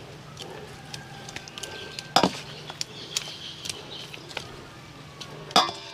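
Metal tongs clicking and knocking against a stainless steel bowl while pieces of raw fish are turned in it. Two sharper knocks come about two seconds in and near the end, among lighter ticks, over a faint steady hum.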